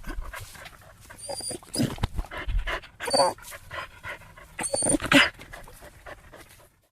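A dog panting in irregular breathy bursts, a few carrying a thin high tone. It cuts off abruptly near the end.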